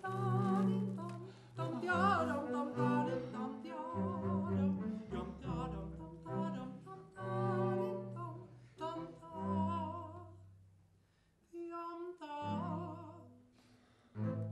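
Double-bass ensemble playing slow music: a high, vibrato-laden melody over held low bass notes. It nearly stops about eleven seconds in, then resumes briefly and fades out.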